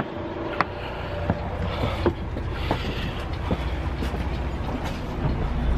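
Low steady rumble of a bus engine heard from inside the bus, with a few short sharp clicks and knocks scattered through.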